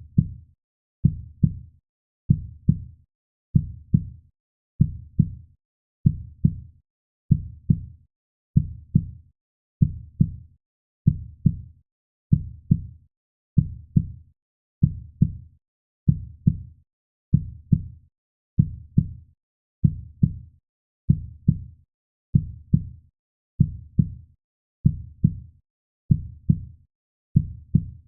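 Heartbeat sound beating steadily in a slow, even rhythm of about 75 beats a minute, each beat a low double thump (lub-dub) with silence between beats.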